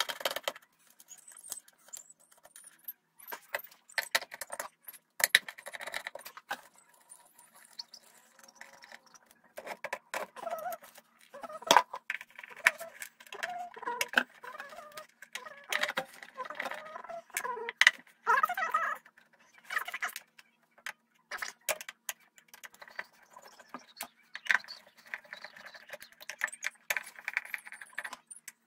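Hand screwdriver working screws out of a transformer's mounting feet on a wooden board, with irregular clicks and the metallic clinking of loose screws, washers and the screwdriver shaft against metal.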